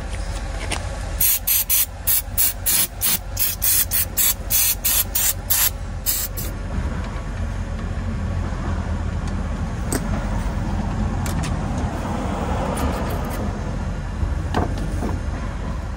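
Aerosol spray, such as brake cleaner on a brake assembly, hissing out in a rapid series of short squirts, about three a second for some five seconds. After that a steady low hum remains, with a few faint clicks.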